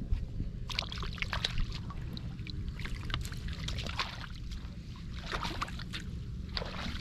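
Shallow rice-field water sloshing and splashing in irregular bursts as someone wades and gropes for fish by hand, over a steady low rumble.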